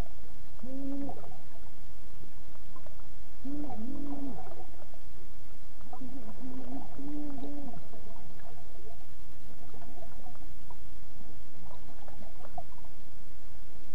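Muffled, gagged moans from a person held underwater, heard through the water: short, flat-pitched calls in small groups of one to three, fading later on, over a steady low underwater rumble.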